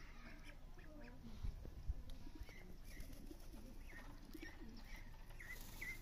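Farmyard poultry calling: short high chirping calls repeated every half second or so over lower warbling calls, with two dull thumps about a second and a half in.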